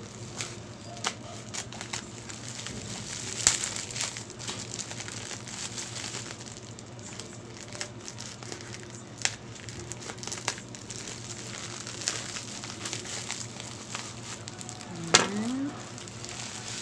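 Bubble wrap and plastic packaging crinkling and crackling as it is cut with scissors and pulled apart, with scattered sharp snips and clicks and one louder snap near the end.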